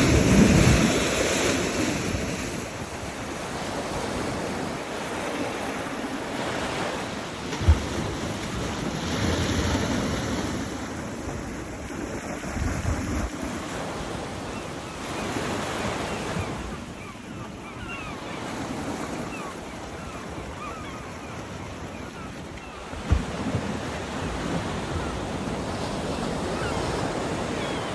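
Ocean surf washing ashore, swelling and ebbing every few seconds, with wind blowing across the microphone. Two brief wind buffets thump on the microphone, about 8 seconds in and again near 23 seconds.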